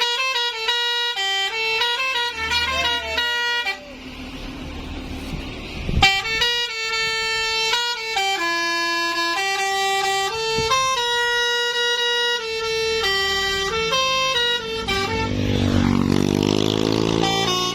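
Telolet musical air horn with a Basuri module, its trumpets sounding in quick stepped notes that make up a tune. The notes break off about four seconds in and start again about two seconds later. Near the end they give way to sliding, wavering pitches.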